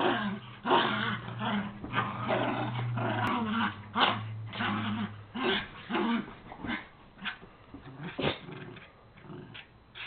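Small dogs play-fighting, one giving a steady low play growl for about the first five seconds, with bursts of scuffling that grow fewer and quieter near the end.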